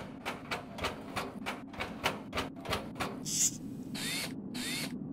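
Animated robot sound effects: quick, even clicking footsteps, about four a second, over a low steady hum, then a short hiss and two rising servo whirs as the robot stops and leans forward.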